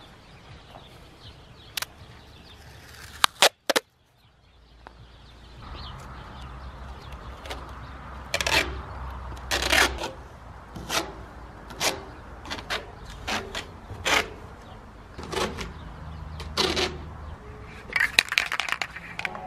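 Masking tape being pulled off the roll in a dozen or so short tearing strips, about one a second, as a metal cabinet's edges are masked. Near the end comes a quick run of rattling ticks from an aerosol spray paint can being shaken.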